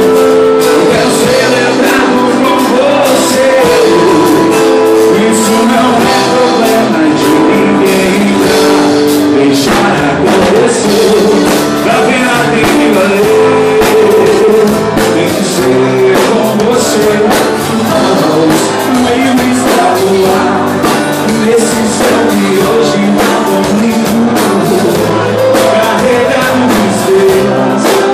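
Live sertanejo band music with singing, played loud and continuous.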